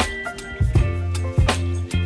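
Music with a low bass line and drum hits.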